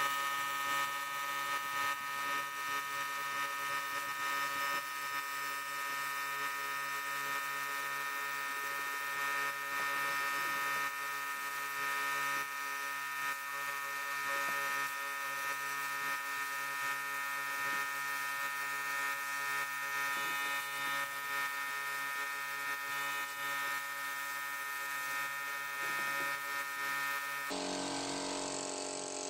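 Small electric power tool motor running steadily with a whine. About 27 seconds in it stops abruptly and a different, noisier sound takes over.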